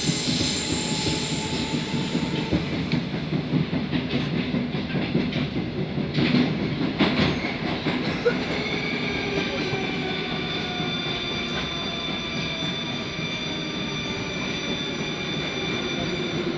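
Metro train running through a tunnel, heard from inside the carriage: wheels rumbling and clattering over the rails. From about eight seconds in, a whine of steady tones sets in and drifts slowly down in pitch as the train slows.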